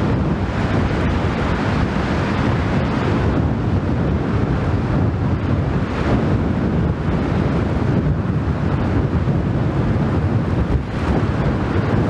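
Strong wind buffeting the microphone: a loud, gusting rumble of noise, heaviest in the low end, with no let-up.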